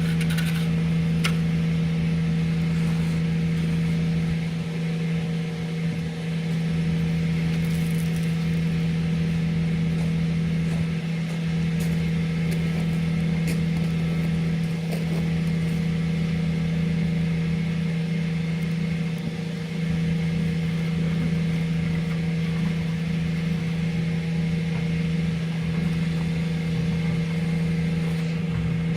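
Septic vacuum pump truck running steadily, its engine and vacuum pump making a constant hum while the hose sucks sewage water out of a septic tank, with good suction.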